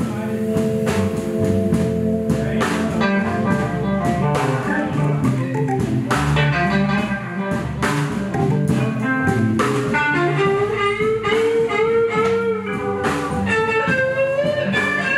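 Blues band playing live through an instrumental stretch, guitar to the fore over drums and bass, with some notes bent in pitch.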